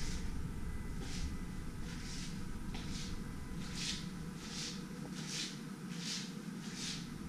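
Footsteps of someone walking across a tiled floor, a soft scuffing step a little more than once a second, over a steady low hum.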